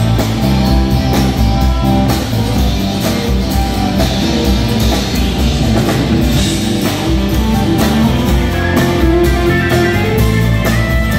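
Live country band playing an instrumental passage without vocals: electric and acoustic guitars over bass and a drum kit keeping a steady beat.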